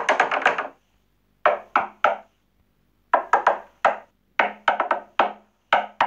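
Door-knock sound effects from KineMaster's SFX library playing back: short groups of three or four quick, sharp raps on a door, each group about a second and a half apart, ending with a single knock.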